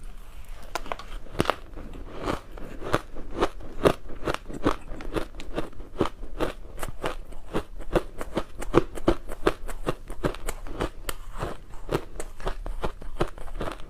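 Close-miked chewing of frozen matcha ice: rapid, continuous crunching and crackling as the teeth break the ice apart.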